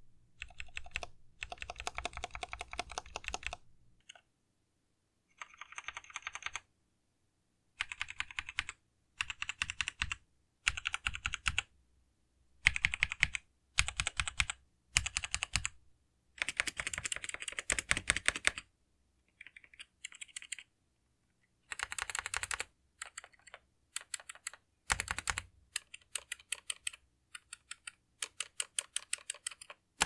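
Mechanical keyboard typing in bursts of rapid keystrokes, each a second or two long with short pauses between. The typing is first on a custom Aiguox GK83 board with Akko Jelly Blue switches and GMK-clone keycaps, then on a Razer BlackWidow gaming keyboard.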